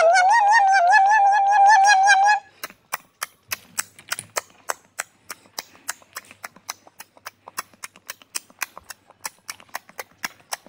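Labrador whining in one long, high, wavering tone that stops about two seconds in. Then the dog chews crunchy stick snacks: a rapid run of sharp crunches, several a second.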